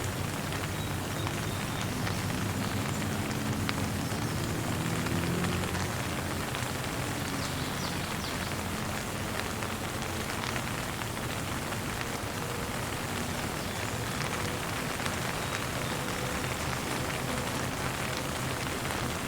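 Steady rain falling, an even hiss of drops on a surface, with a faint low hum swelling briefly a few seconds in.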